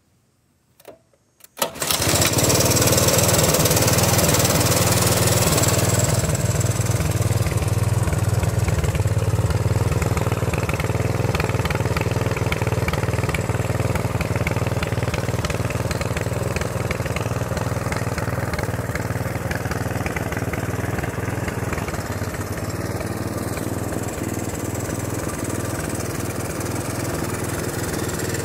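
A 1983 Honda ATC's air-cooled single-cylinder engine starts up after a brief click, runs fast for a few seconds, then settles into a steady, throbbing idle.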